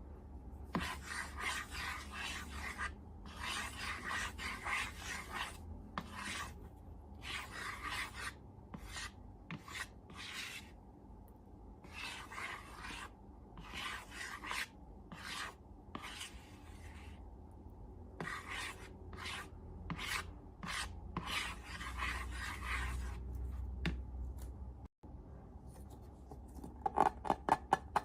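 Hands rubbing and squishing slime in a series of short, noisy strokes with pauses between them, ending in a quick run of sharper crackling pops.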